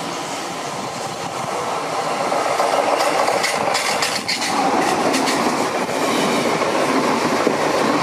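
S-Bahn electric multiple unit running along the platform, its rail noise growing louder as it draws near. About three seconds in comes a quick run of wheel clicks over rail joints, followed by a falling tone as it passes.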